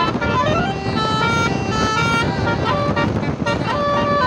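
Basuri-type telolet musical horn on a tour bus playing a melody: a run of held horn notes that change pitch in steps, a few of them sliding, over a steady noise of traffic and engine.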